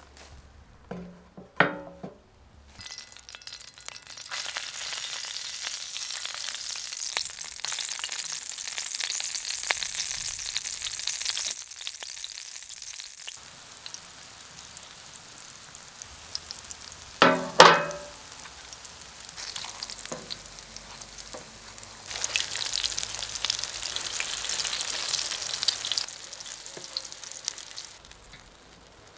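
Cottage cheese pancakes (syrnyky) sizzling as they fry in oil in a wide iron pan. The sizzle swells and eases at times, with a brief clatter about a second and a half in and a louder one about midway.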